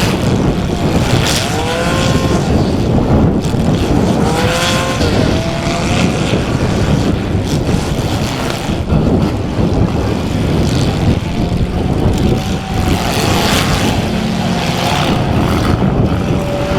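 Compact demolition-derby cars with engines revving hard, their pitch rising and falling, and several crashes of metal on metal as cars ram each other.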